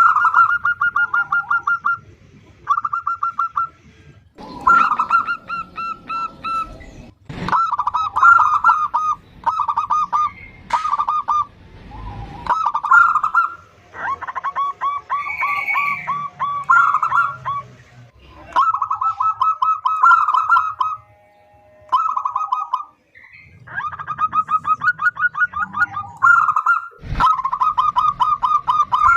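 Female zebra dove (perkutut) calling: repeated short trains of rapid, stuttering notes, about ten a second, broken by brief pauses, with a few sharp knocks in between.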